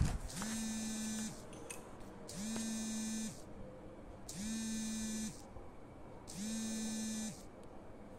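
Repeated electric buzzing: four buzzes of about a second each, two seconds apart, each starting with a slight rise in pitch.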